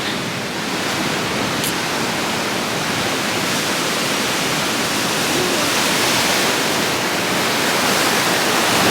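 Ocean surf washing in a steady hiss, getting slightly louder toward the end.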